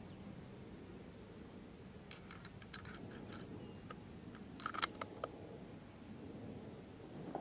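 Low steady rumble with scattered small clicks and snaps about two seconds in, then a sharper cluster of clicks about five seconds in.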